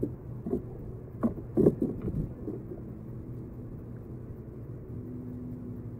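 A few dull knocks and bumps on a plastic sit-on-top kayak in the first couple of seconds, then a faint, low, steady hum.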